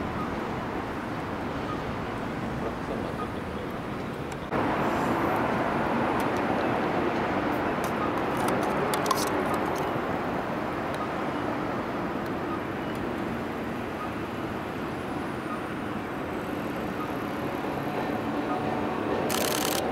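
Steady city road-traffic noise at a tram-line intersection. It turns abruptly louder about four and a half seconds in, with a few brief clicks a few seconds later and a short high-pitched burst near the end.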